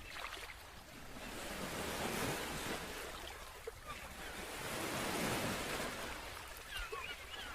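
Ocean surf: waves washing in and drawing back, swelling and fading in slow surges every few seconds.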